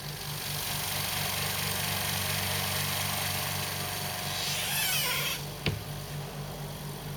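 A Rocwood 50-litre oil-free air compressor's pump running steadily with a low, even hum, heard through the closed doors of its compressor shed. A rushing hiss rides over it and stops about five seconds in, followed by a single sharp click.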